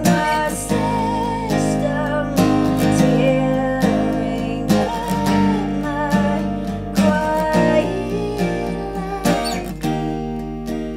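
A woman singing a slow melody over her own strummed acoustic guitar chords.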